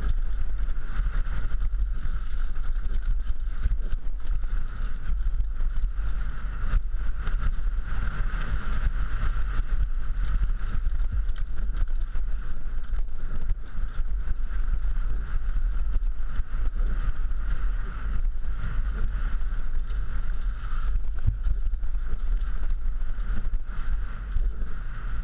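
Downhill mountain bike descending a rough dirt trail: steady wind rumble on the microphone, with the bike rattling and knocking over roots and rocks.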